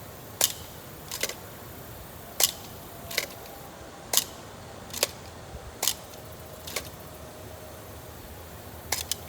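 Sharp metal clicks of a Ford 4100 carburetor's throttle and choke linkage being worked by hand and snapping back, about one click a second, with two quick clicks near the end.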